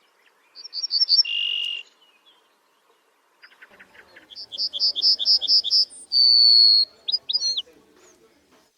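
A songbird singing two phrases: the first, about half a second in, is four quick notes and then a held whistle; the second, about three and a half seconds in, starts with fast faint ticks, then a run of repeated notes, a longer high held whistle and a few quick up-and-down glides.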